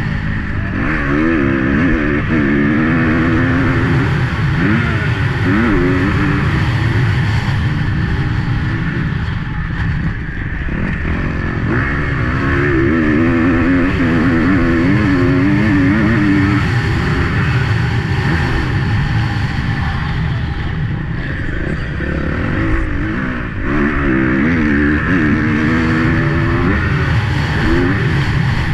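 250 cc four-stroke motocross bike engine at racing pace, heard from on board: revs repeatedly climb and drop as the rider opens the throttle and shifts between corners and straights.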